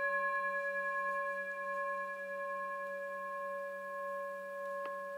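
A long, bell-like ringing tone made of several steady pitches, slowly fading with a gentle wavering. A faint click comes near the end.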